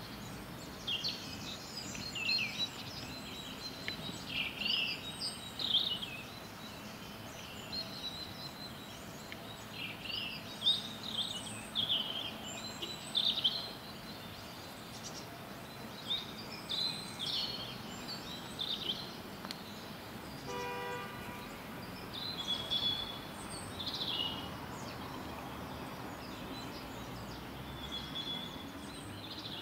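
Songbirds chirping and trilling in scattered short phrases over a steady distant city hum. A single brief pitched tone sounds about two-thirds of the way through.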